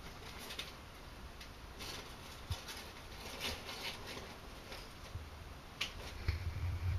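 Dwarf hamster scurrying on a wooden desk: faint, scattered scratches and light clicks of small claws, with a few low bumps near the end.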